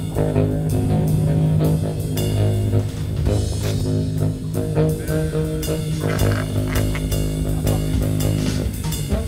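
Improvised music: a baritone saxophone holding low, droning tones over frequent hand-percussion hits.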